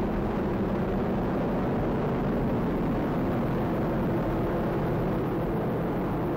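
Steady rushing noise of an Atlas V 501 rocket's RD-180 first-stage engine in ascent, a dense noise heaviest in the low end, with no change in loudness.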